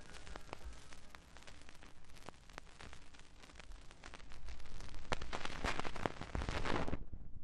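Vinyl surface noise from a 45 rpm single's run-out groove: dense crackle with sharp clicks and pops, getting louder about four and a half seconds in. Near the end the crackle dulls as the record stops turning.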